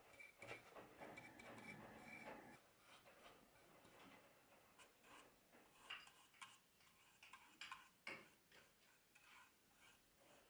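Faint brushing and small irregular clicks and taps as a flat bristle paintbrush works varnish onto a small wooden miniature chest of drawers and the piece is handled. Soft rubbing strokes come first, then scattered light clicks.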